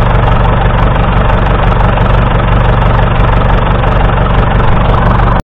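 Perkins P4 four-cylinder diesel engine in a Fordson Model N tractor idling steadily, heard close up. The sound cuts off abruptly near the end.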